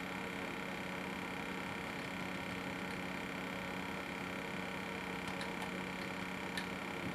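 A steady electrical hum made of several level tones from a running Smith Corona PWP220 word processor, with a few faint ticks in the second half.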